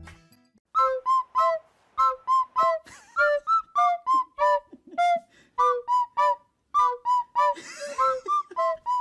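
Background music: a bouncy melody of short, separate whistle- or flute-like notes, about two to three a second, each bending slightly in pitch.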